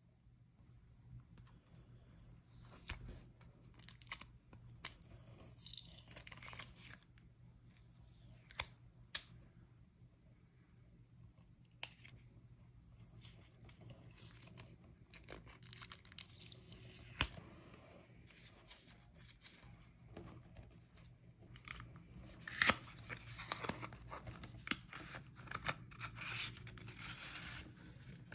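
Utility knife blade scraping and cutting along the edge of a fingerboard deck's grip tape, then grip tape being peeled and torn away, with scattered sharp clicks and several long rasping tearing stretches.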